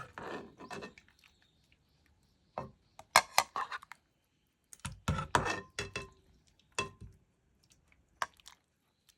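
Dishes and utensils clinking and knocking in several short bursts, some with a brief ceramic or glassy ring.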